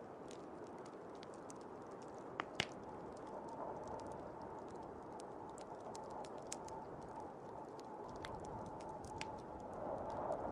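Wood fire crackling with scattered small pops, two sharper pops about two and a half seconds in, over the steady rush of blizzard wind.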